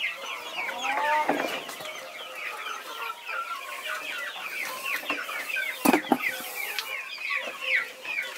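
A flock of young chickens clucking and peeping as they feed, many short high chirps overlapping without a break. Two sharp knocks about six seconds in.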